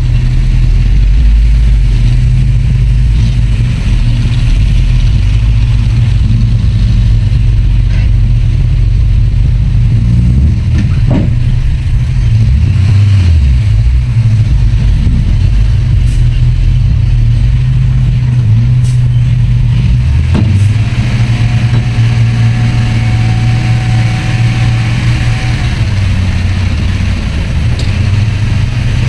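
Heavy diesel earthmoving machinery running steadily with a constant low engine drone, broken by a few short sharp knocks.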